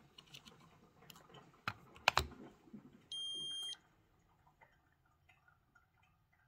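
A few sharp clicks of a strip and meter being handled, then one steady electronic beep about three seconds in, lasting just over half a second, from a Keto-Mojo GK+ blood ketone and glucose meter as a ketone test strip is inserted and the meter wakes into ketone mode.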